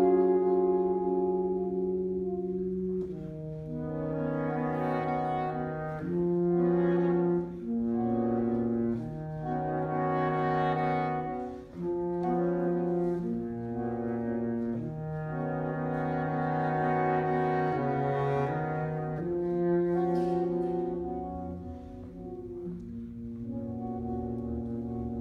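Saxophone quartet of soprano, alto, tenor and baritone saxophones playing slow, sustained chords that move to a new chord every second or two, the baritone holding the low notes. It grows softer near the end.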